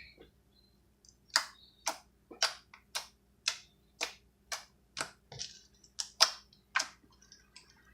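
Freshly made glue slime being squeezed and worked in the hands, giving a run of about a dozen sharp clicks and pops, roughly two a second.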